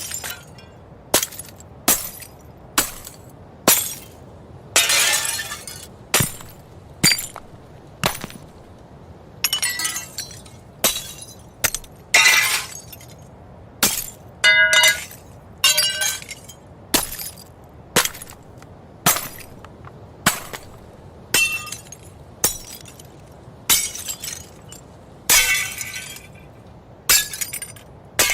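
A rapid series of separate glass-breaking sound effects, about one a second: each a sharp crash of shattering glass with a tinkling tail. A few are longer smashes with drawn-out falling shards, and some ring with clear glassy tones.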